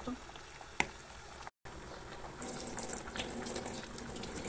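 Pot of spaghetti in tomato sauce bubbling on the stove, with a sharp click a little under a second in. The sound cuts out briefly, then a louder steady watery rushing with small crackles takes over.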